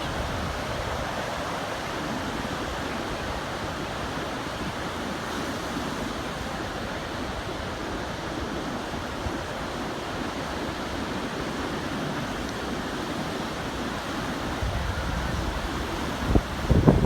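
Ocean surf breaking and washing up the beach in a steady rush. Wind gusts buffet the microphone near the end.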